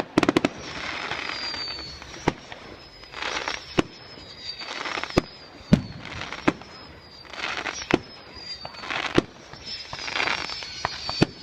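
Fireworks going off: a quick string of bangs at the start, then single sharp bangs every second or so. Between them come crackling bursts and faint high whistles that fall slowly in pitch.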